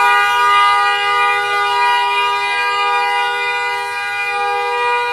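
Long, loud blast of an air horn, a steady two-note chord held without a break.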